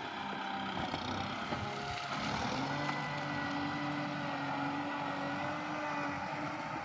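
Kubota tractor's diesel engine running steadily as its front loader works a gravel pile, the engine note rising about two seconds in.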